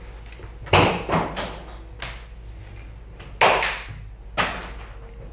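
Handling noise: a few short knocks and rustles as objects are moved about, loudest about a second in and again about three and a half seconds in.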